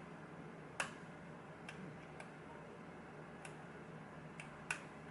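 Light, sparse metallic clicks from a pin-tumbler lock being picked with a short hook pick and tension wrench: about six irregular ticks as the pick works the pins, the loudest about a second in.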